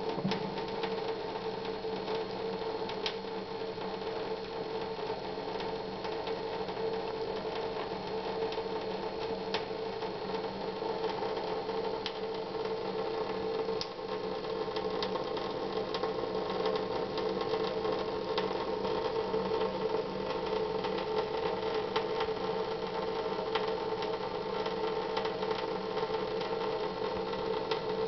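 A small electric motor or pump running with a steady hum, with faint scattered ticks over it.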